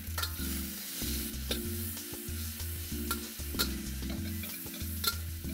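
Edamame, garlic and oyster sauce sizzling in a hot wok while a metal spatula stirs and tosses them, scraping and clicking against the wok a few times. Music plays underneath.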